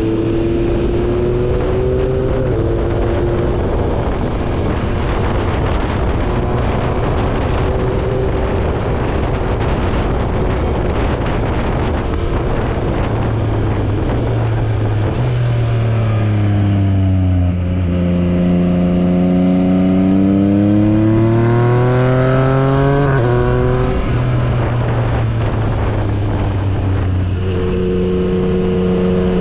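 Yamaha MT-09 three-cylinder motorcycle engine running while riding at speed, with heavy wind rush over the microphone. Past the middle the engine note drops and then climbs steadily as the bike slows and pulls away again, with a sudden break in pitch near the top of the climb.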